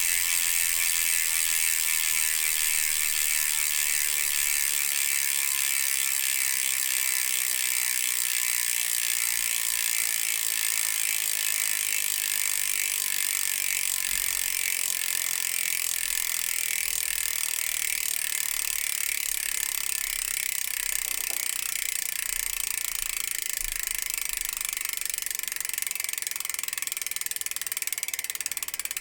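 Hope Pro 4 rear hub freewheeling: its pawls click against the ratchet ring in a rapid buzz as the wheel spins freely. The buzz slows and fades gradually as the wheel coasts down.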